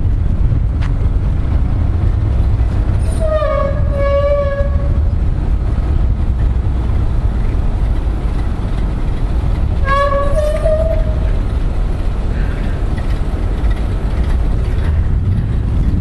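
1929 Ford Model A truck's four-cylinder engine and road noise: a steady low rumble while driving. A horn sounds twice, once about three seconds in and again about ten seconds in, each note lasting a second or two.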